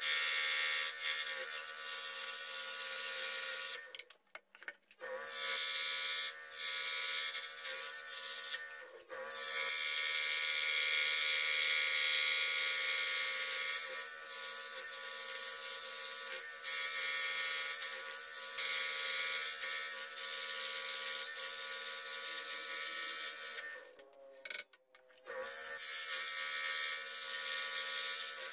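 Scroll saw running and cutting wood: a steady motor hum with the blade's fast rasping through the board. The sound drops out briefly twice, about four seconds in and about twenty-four seconds in.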